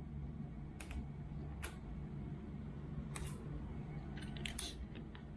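Tape being pulled off its roll and handled: a few short clicks and rasps, spread out, over a steady low hum.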